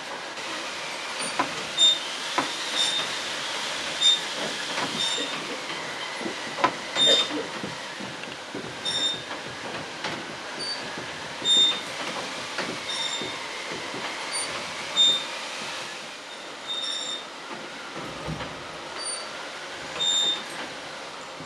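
A large hand-worked wooden drum sound machine turning, giving a thin squealing tone that slowly rises and falls like a train's wheel squeal. Short high metallic pings sound about once every one to two seconds, with scattered knocks among them.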